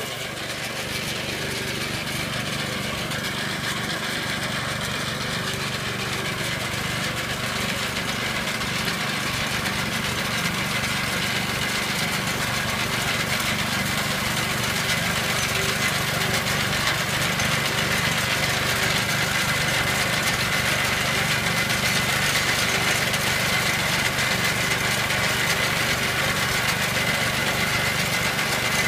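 The small petrol engine of a walk-behind reaper runs steadily while the machine cuts standing grain, growing gradually louder as it comes closer.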